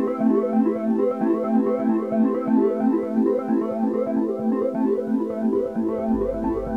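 Background music: quick repeating notes over held chords, with a deep bass coming in near the end.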